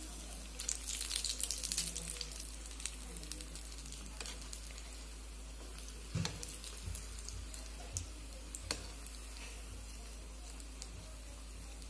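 Hot oil sizzling and crackling around batter-coated potato fritters (batata vada) as they deep-fry and are turned over with a perforated metal skimmer. The crackle is strongest in the first couple of seconds. A few sharp clicks of the skimmer against the pan come around the middle.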